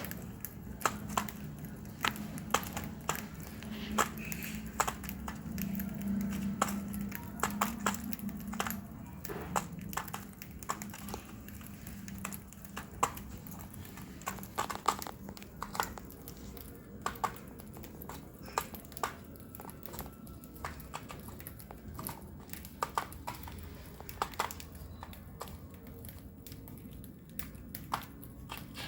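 Lovebird cracking and pecking at seeds: a run of sharp, irregular clicks and cracks, several a second, over a faint low hum.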